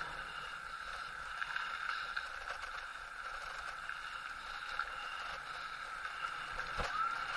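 Steady rushing ride noise from moving along a paved street by bicycle, tyre and wind noise on the camera's microphone, with a constant high hum underneath. A single sharp click near the end, followed by a short rising tone.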